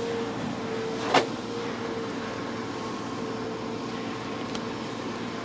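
Hands handling foil trading-card packs against a steady room hum with a faint held tone. There is one sharp tap about a second in and a fainter tick near the end.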